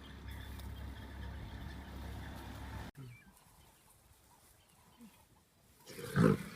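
A low steady rumble, then after an abrupt cut a quieter stretch ending in one short, loud grunt from a lion.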